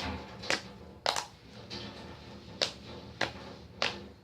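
Freshly made borax-activated clear slime being squeezed and folded by hand, giving about six sharp clicks at uneven intervals.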